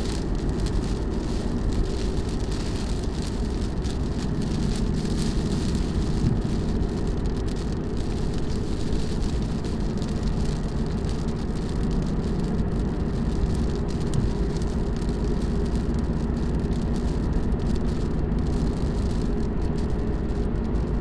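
Steady in-cabin drive noise of a 2018 Ford Mustang GT at highway speed: a low, even engine drone from its 5.0 L V8 under tyre hiss on the wet road, with light rain on the windshield.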